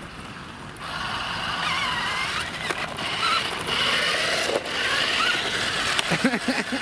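Electric drive motors and gears of a Virhuck Stunt X toy RC transformer car whining as it drives, the pitch rising and falling with the throttle. The whine starts about a second in, with a few short knocks along the way.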